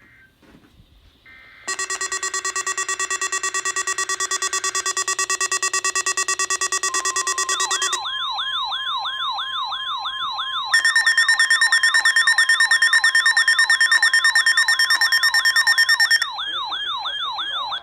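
Weather radio receivers alarming to a weekly test. A buzzing, rapidly pulsing beep starts about two seconds in. About eight seconds in it gives way to a fast warbling siren-like alarm, over the steady 1050 Hz NOAA Weather Radio warning tone, which stops a couple of seconds before the warble does.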